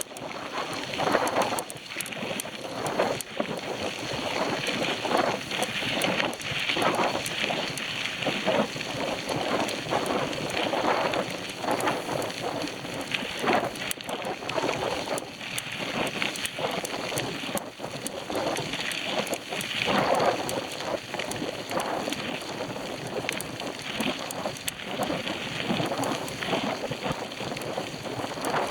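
Wind rushing over the microphone of a camera on a moving bicycle, an uneven roar that swells and fades.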